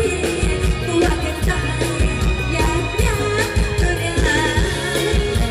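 Live band music from a Thai mor lam troupe, a pop-style song with a steady drum-kit beat, and a woman singing the lead into a microphone over the sound system.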